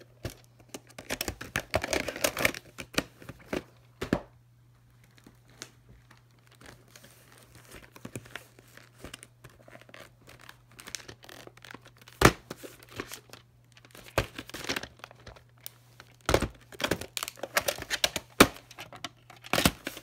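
Plastic clamshell VHS cases being handled, shuffled and opened, with a cassette taken out: sharp plastic clacks and knocks and the rustle of cases sliding over one another. It is busiest in the first few seconds and again in the second half, with a quieter stretch in between.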